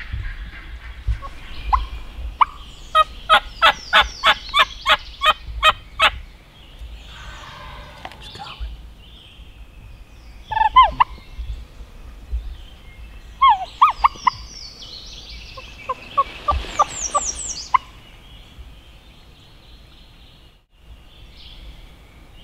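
Wild turkey calling in spring: a run of about ten evenly spaced calls, then several short bursts of gobbling later on.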